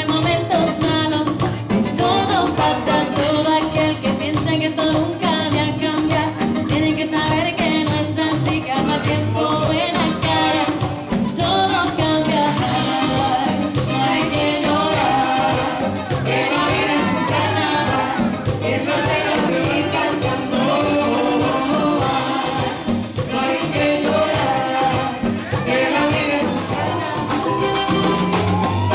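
Live Latin band playing salsa-style dance music with singing and a steady, driving rhythm.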